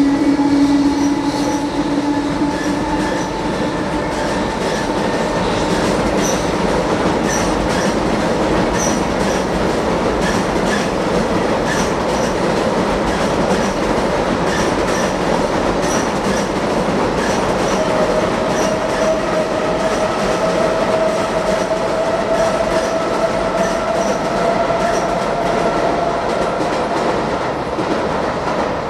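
Container freight wagons rolling over a steel girder bridge: a steady rumble with clicking wheels and a few sustained ringing tones that drift slowly in pitch.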